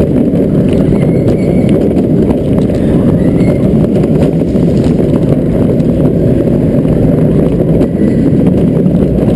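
Vekoma SLC roller coaster train running at speed, heard from a chest-mounted camera: a steady, loud rumble and clatter of the wheels on the steel track, mixed with wind buffeting the microphone.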